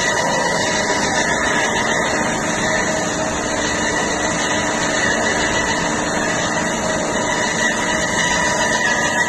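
Industrial band saw running steadily, a constant machine hum with a few steady high tones over an even noise.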